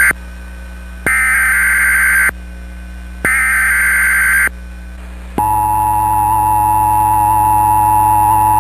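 Emergency Alert System SAME header: loud, screeching digital data bursts about a second long, repeated with short gaps. The last burst ends about four and a half seconds in, and after a brief pause the steady EAS attention tone begins and holds.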